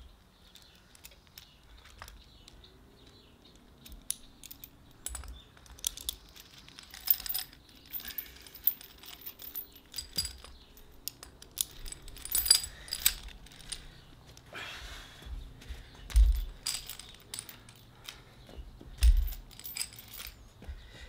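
Steel chain links clinking and jangling as the chain is handled and hooked onto a stone weight, in irregular short clinks. A few dull thumps are heard among them.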